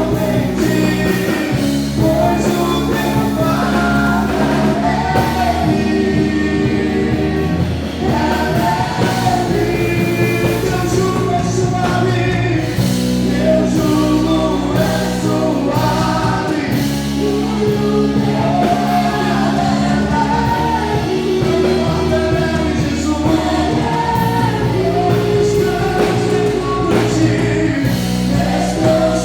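Live praise-and-worship music: a band playing held chords with a bass line, and voices singing a melody over it.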